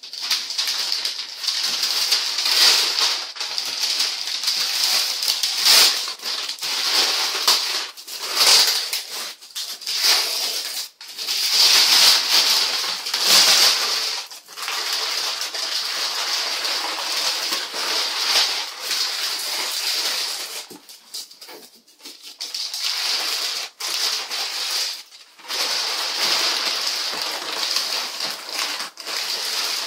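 Brown kraft wrapping paper being torn and crumpled off a cardboard box: continuous crinkling and ripping in uneven swells, with a short lull about two-thirds of the way through.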